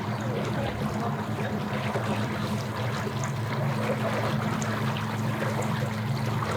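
Boat motor running steadily at low speed just after being started, with a low even hum.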